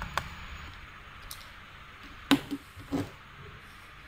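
A few short, sharp clicks and taps: one near the start, one about a second in, and the loudest two past the middle, each of the last two with a brief dull knock, over a faint steady hiss.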